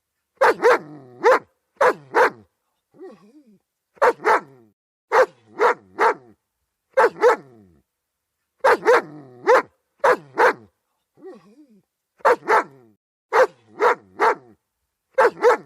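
German Shepherd dog barking in quick bursts of two or three loud barks, with short pauses between bursts and a couple of fainter, softer calls in the gaps.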